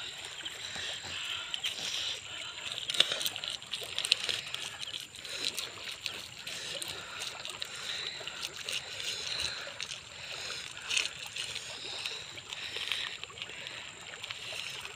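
River water flowing steadily, with scattered small clicks and rustles as fingers pick and brush insects off bare skin.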